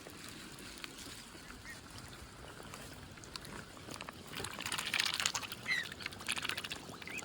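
Cygnet feeding from a hand: after a quiet start, quick clicks of its bill and short high peeps begin about four seconds in.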